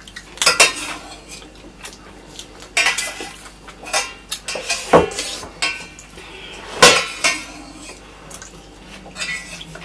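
Metal spoon scraping and clinking against a brass plate as food is scooped up, with several sharp clinks spaced a second or two apart.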